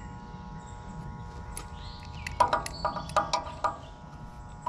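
A metal hand tool working the fan blade hub on the condenser fan motor shaft: a quick run of about six sharp metallic clicks, each with a short ring, a little past halfway through.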